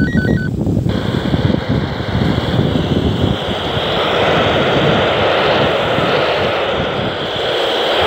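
Steady static hiss from a handheld VHF/UHF radio's speaker, with wind gusting on the microphone. A stepping pattern of electronic beeping tones cuts off about a second in.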